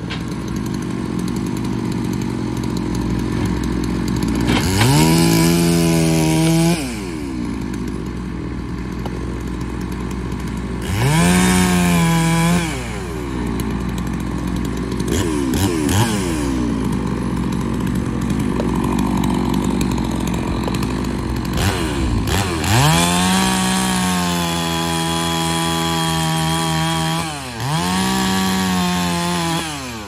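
Two-stroke chainsaw revved up to full throttle four times, each burst climbing quickly, held for one to five seconds and then dropping back to idle, the last two close together near the end. A skid steer loader's engine idles steadily underneath.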